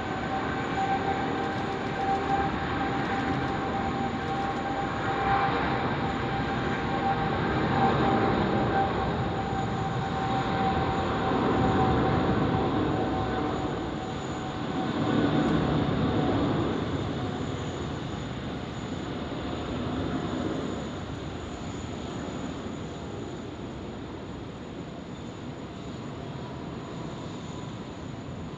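Boeing 787 jet engines at takeoff power: a steady whine over a rumbling roar that swells several times, then fades over the last ten seconds as the airliner departs.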